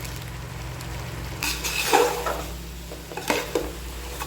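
Spoon stirring chicken masala in a cooking pot, scraping and knocking against the metal with a few sharp clinks about a second and a half in and again past three seconds. A steady low hum runs underneath.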